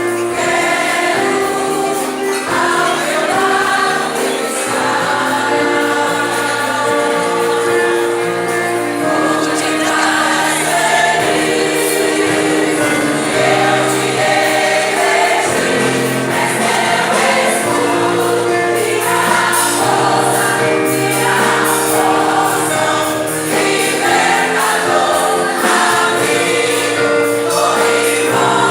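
Choir singing a Christian song, voices held on long sustained notes without a break.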